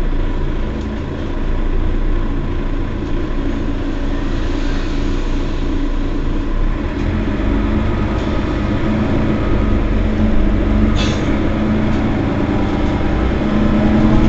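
Mercedes-Benz Citaro bus engine running with a steady low rumble, its note growing stronger from about halfway. There is a brief hiss about eleven seconds in.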